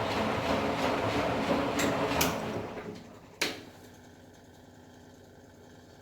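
Candy Formula Inox P 7.71X washing machine on a cotton wash: the motor turning the drum runs down and stops about two and a half seconds in. A sharp click comes about a second later, then only a faint hum while the drum rests between turns.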